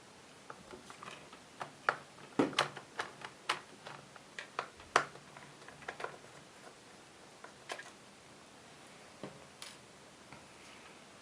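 A Phillips screwdriver working out small screws from inside a MacBook Pro: irregular light clicks and taps of the tool and screws against metal, coming in a cluster, then only now and then.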